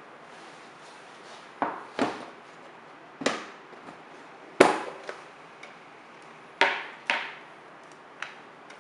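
Kitchenware knocking on a wooden table: a metal baking pan and plate being moved and set down, about eight sharp knocks, the loudest near the middle.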